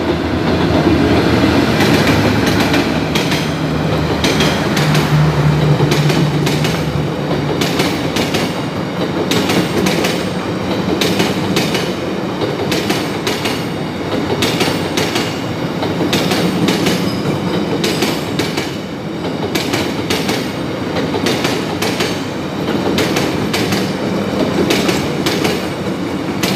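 D19E diesel-electric locomotive passing with its SE4 passenger train. The engine drone is strongest in the first several seconds, then the carriages roll by with a steady rhythm of wheel clicks over the rail joints.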